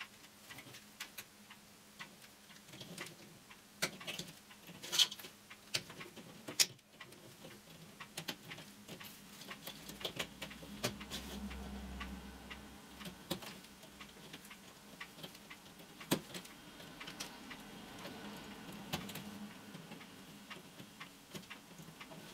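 Chicken wire being worked with pliers in gloved hands: irregular small metallic clicks and ticks as cut wire ends are bent over and pushed through the mesh to join the seam.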